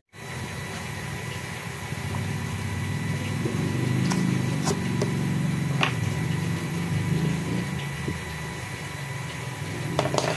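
Steady low mechanical hum and rumble that swells for a few seconds in the middle, with a few light clicks.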